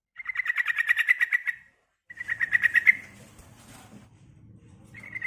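Female sooty-headed bulbul (trucukan) giving rapid, rattling trilled calls: one long trill, a shorter one, and a third starting near the end.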